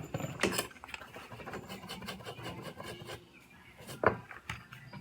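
Small hand tool scraping and rubbing on a phone's circuit board in quick, irregular strokes, with a few sharper clicks, one about half a second in and a louder one about four seconds in.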